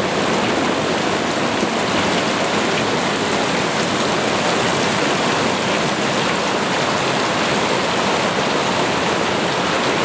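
Mountain creek rapids pouring into a pool: a steady, loud rush of splashing water.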